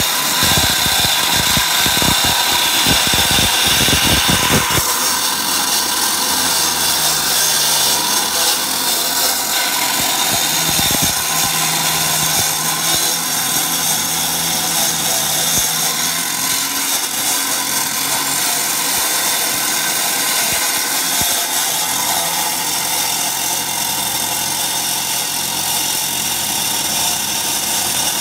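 Corded electric angle grinder with a cutting disc running into concrete: a loud, steady grinding whine with no break, its sound shifting once about five seconds in.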